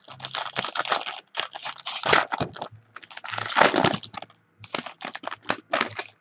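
A sealed trading card pack wrapper being torn open and crinkled in the hands, in a run of uneven crackling bursts.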